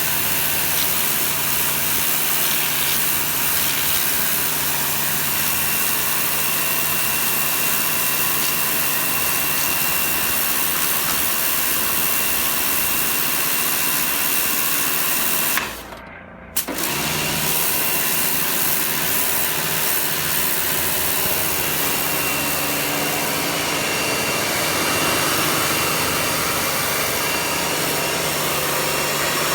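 Kärcher pressure washer running steadily, a motor hum under a dense hissing spray. Just past halfway it cuts out for about a second, then starts up again and carries on.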